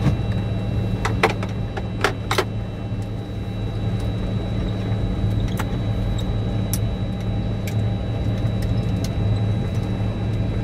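Flightdeck of a DC-9-14 taxiing, its rear-mounted Pratt & Whitney JT8D turbofans at idle: a steady low hum with a thin high whine over it. A few sharp clicks come about one to two and a half seconds in.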